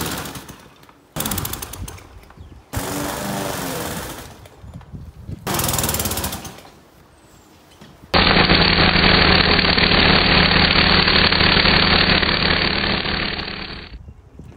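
Petrol garden machines running in a series of short clipped bursts: a Victa push mower cutting long grass and an Echo line trimmer, each lasting a second or two. About eight seconds in, a loud steady engine drone takes over for about six seconds, then cuts off suddenly.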